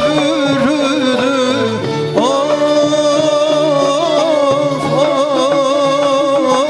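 Instrumental Turkish folk music: a melody of long, wavering held notes with small slides between pitches, over a steady low drone.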